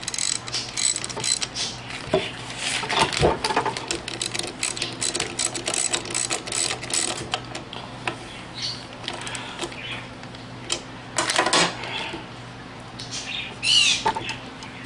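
Ratchet wrench with a 10 mm socket clicking in rapid runs as a small bolt on an air suspension compressor is tightened, with scattered clicks and metal taps in the second half.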